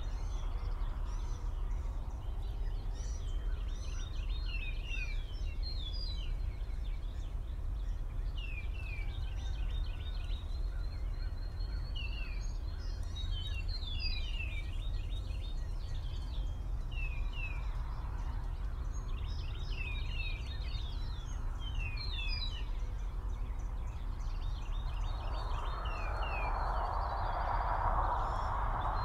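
Wild songbirds calling in the background: quick, high, falling chirps in little clusters every second or two, over a steady low rumble. A broad noisy swell builds near the end.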